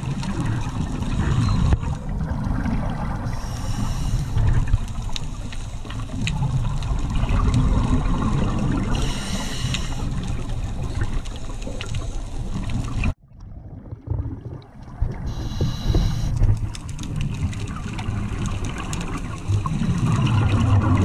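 Underwater sound from a diving camera: a steady muffled rumble of water, broken about every six seconds by a burst of bubbles from a scuba diver's regulator exhaling. The sound drops out briefly about two-thirds of the way through.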